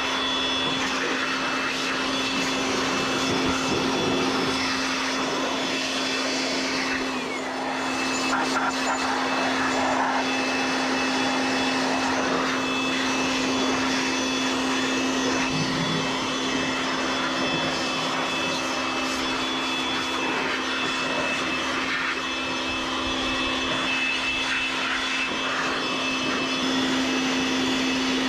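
Steady whir of motor-driven fan machinery with a constant low hum.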